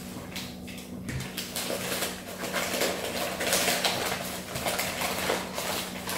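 Newspaper packing rustling and crinkling as the next piece is dug out of a box and unwrapped, with occasional light clinks of the china and glass inside. The crinkling grows busier from about a second and a half in.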